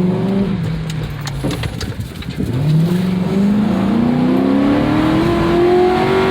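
Ford Crown Victoria Police Interceptor's 4.6-litre V8 pulling under hard acceleration: revs climb, drop with an automatic upshift about two and a half seconds in, then climb steadily again.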